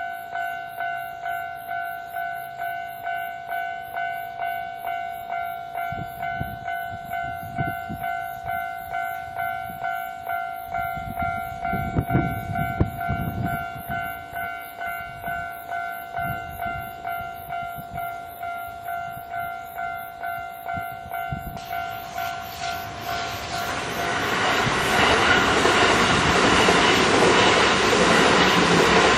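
Japanese level-crossing electronic warning bell ringing steadily, about two dings a second, while an approaching electric train rumbles closer. The bell cuts off about three-quarters of the way through, and a Kintetsu electric train passes loudly over the crossing until the end.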